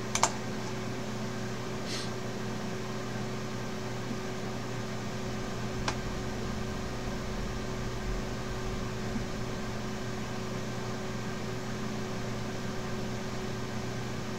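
Steady machine hum with a faint hiss, like fans running, broken by a few faint short clicks near the start and about six seconds in.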